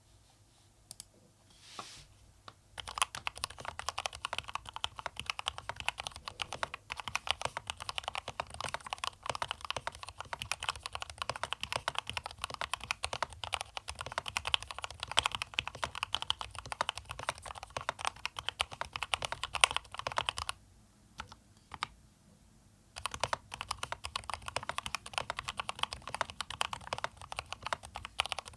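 Typing on an Akko 3068B Plus mechanical keyboard with Akko Jelly Pink linear switches: a few single keystrokes, then a fast, dense stream of key clicks from about three seconds in. The typing pauses for about two seconds around two-thirds of the way through, then resumes.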